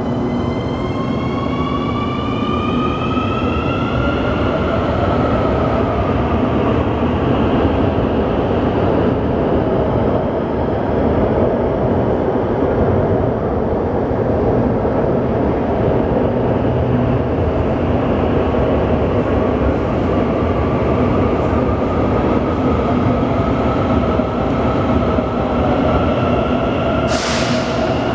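Santiago Metro CAF AS-2014 train's electric traction whine, several tones rising in pitch over the first few seconds and then sinking away, over a steady rail rumble. About a second before the end a short hiss sounds, and the whine starts rising again.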